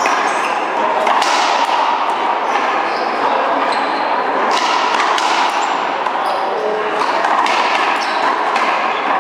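One-wall racquetball rally: the hollow rubber ball is struck by strung racquets and smacks off the wall, a sharp knock roughly every second or so. Short high squeaks, likely sneakers on the court floor, sit between the hits.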